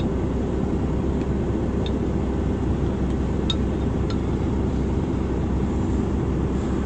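Semi truck's diesel engine running with a steady low hum inside the cab, with a few faint clicks as a plastic spoon scrapes and taps the inside of the crock pot.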